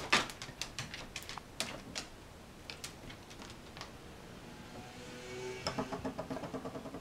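Dog's claws clicking irregularly on a hardwood floor as it moves about, for the first few seconds. In the last second and a half comes a low, rapidly pulsing buzz.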